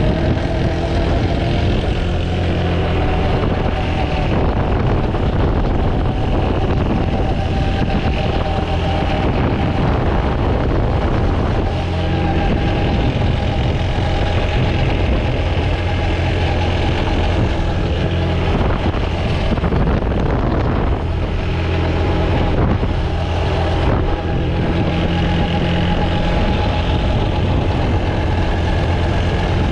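Quad bike engine running steadily while being ridden, its pitch drifting up and down a little with speed.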